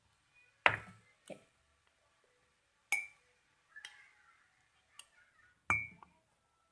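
A spoon clinking against a dish about six times as ingredients are measured out, a few of the strikes ringing briefly.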